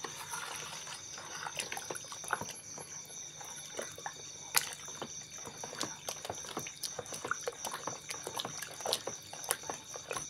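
A spoon stirring coconut milk into a thick chocolate mixture in a plastic bowl: liquid sloshing and swirling, with irregular light taps of the spoon against the bowl. A steady high cricket trill runs in the background.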